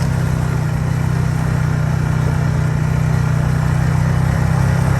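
A vehicle engine running steadily at a low, even drone, getting slightly louder near the end.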